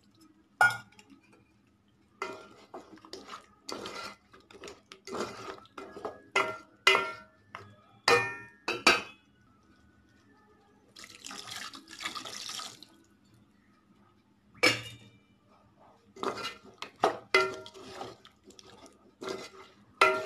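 A metal ladle knocking and clinking against the side of a metal cooking pot as a liquid curry is stirred, in irregular runs of sharp, ringing taps. About halfway through there is a short watery rush of liquid in the pot.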